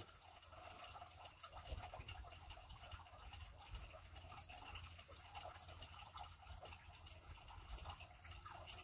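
Near silence, with faint water lapping and dripping against a small boat's hull and a low rumble.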